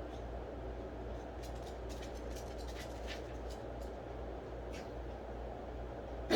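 Steady low room hum and hiss with a few faint soft ticks, then right at the very end the sudden start of a loud cough from a Yorkie with a collapsing trachea.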